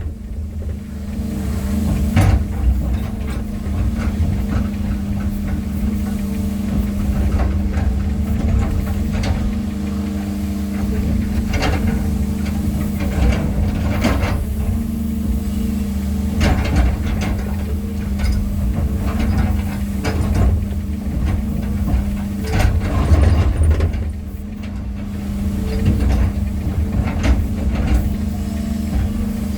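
Heavy diesel engine of construction machinery, plausibly an excavator setting boulders, running steadily with a low hum. Scattered sharp knocks and clunks sound over it.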